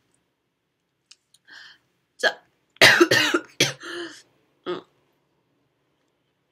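A woman coughing several times into her hand, short coughs in a run with the loudest about three seconds in.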